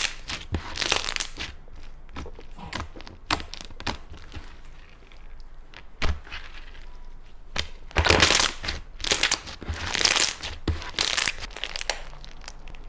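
Slime being pressed and squished, giving off crackling, crinkling clicks and pops, with the densest, loudest spells of crackling about eight and ten seconds in.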